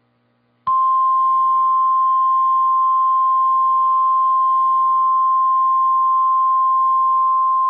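NOAA Weather Radio 1050 Hz warning alarm tone: one steady high tone that starts sharply about half a second in and holds. It signals that a warning or watch message follows, here a tornado watch.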